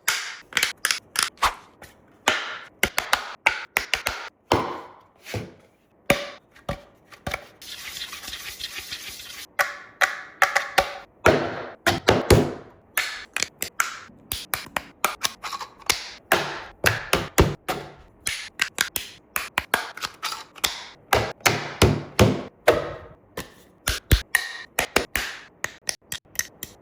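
Rapid hard clicks, taps and knocks of 3D-printed plastic parts being handled and snapped together, irregular and fast, with a short stretch of scraping noise about eight seconds in.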